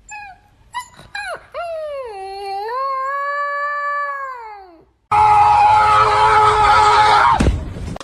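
Dog yelping a few times, then a long howl that dips in pitch, holds and falls away. After it a loud, harsh sound with a steady hum in it starts abruptly and cuts off with a sharp downward drop near the end.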